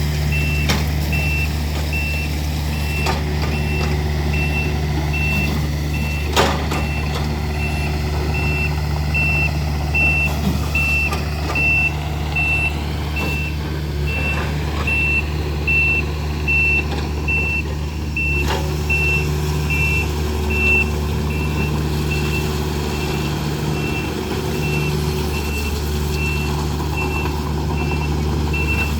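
Takeuchi TB240 compact excavator's diesel engine running steadily while its travel alarm beeps repeatedly, about one and a half beeps a second. There are a couple of sharp knocks, one about six seconds in and another near eighteen seconds.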